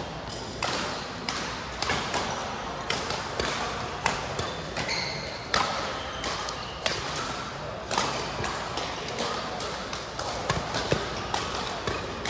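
Badminton rackets smacking a shuttlecock over and over during rallies, sharp hits coming every half second to a second, ringing in a large hall.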